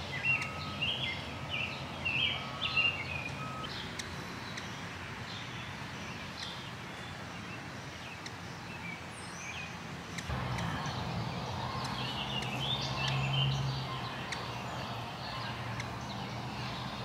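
Outdoor ambience: small birds chirping in short calls during the first few seconds and again a little past the middle, over a steady background hiss. A low hum joins about ten seconds in.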